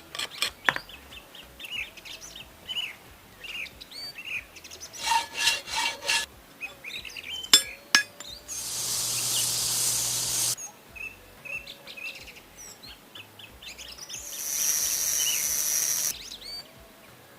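Two bursts of abrasive rubbing, each about two seconds long, from metal being worked in a knife restoration. A few sharp clicks fall between them, and small birds chirp throughout.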